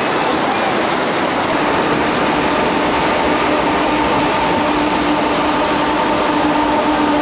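Loud, steady rush of whitewater rapids. About two to three seconds in, a steady low hum with a fainter higher tone joins it and holds.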